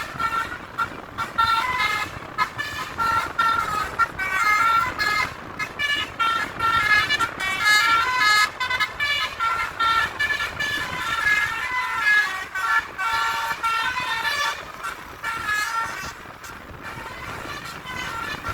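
Indonesian bus 'telolet' (basuri) multi-tone horns playing short tunes: quick runs of short notes stepping up and down in pitch, repeated in patterns with brief gaps, two horns at times sounding together. The horns grow quieter near the end.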